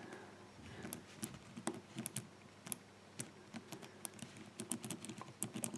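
Faint, irregular small clicks of a Burg Wächter combination padlock's number wheels being turned by hand, one detent at a time, as the lock is decoded.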